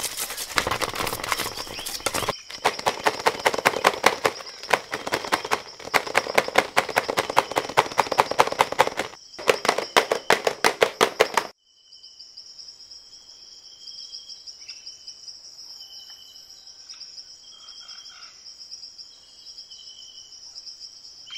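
Steel bowl pressing and tapping besan mixture flat in a steel tray: a rapid run of knocks, about four or five a second, that stops abruptly about eleven seconds in. After that comes a steady high chirping of insects with short bird calls.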